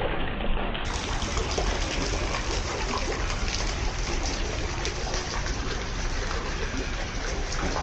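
Steady rush of flowing water, with a change in the recording just under a second in.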